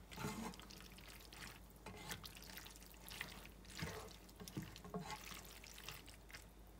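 Faint wet squelching as a plastic spatula stirs and folds thick, saucy pasta, chicken and vegetables in a pan, with a few light taps of the spatula against the pan.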